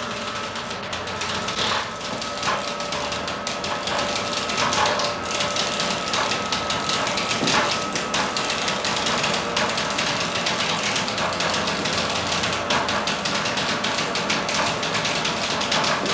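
Hoist lifting a bronze church bell up into the tower: a steady mechanical whine with continuous rattling and clanking over it.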